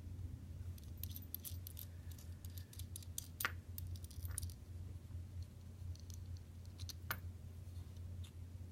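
Small metallic clicks and light scrapes of a Medeco Duracam lock cylinder and its parts being handled and taken apart by hand, with two sharper clicks about three and a half and seven seconds in. A steady low hum runs underneath.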